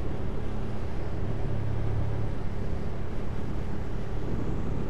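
Hyosung 250cc motorcycle riding in traffic: steady engine hum with road and wind noise.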